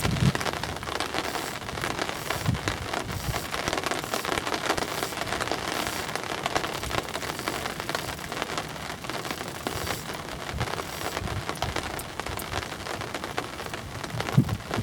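Rain pattering steadily, a dense hiss of many fine drops.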